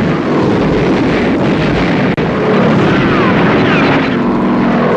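Film soundtrack of an air raid: propeller warplane engines drone loudly, with several rising and falling pitch glides as aircraft pass and dive.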